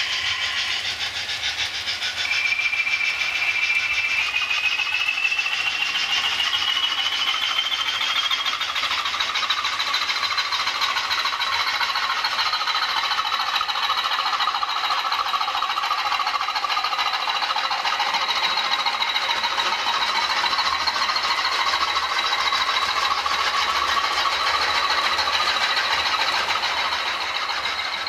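A model railway train running on the track, with a rattle of wheels over the rails. A thin motor whine starts a couple of seconds in and rises in pitch as the train picks up speed, then holds steady.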